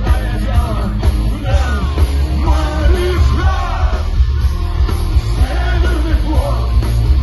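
Loud rock music with a singing voice over a heavy, steady bass.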